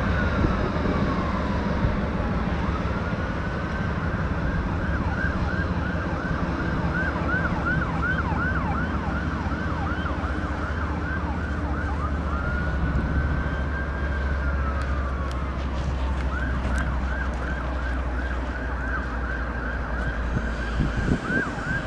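Emergency vehicle siren switching between a slow rising-and-falling wail and a fast repeated yelp, over a steady low train rumble.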